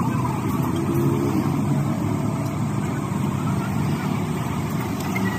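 An engine running steadily, a low, even rumble with no sudden changes.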